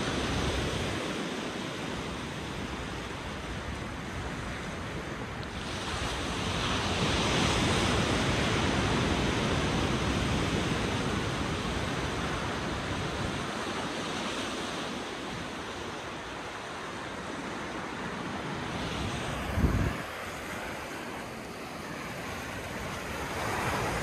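Rushing noise of surf and wind, swelling for several seconds about a quarter of the way in. One brief low thump comes about four-fifths of the way through.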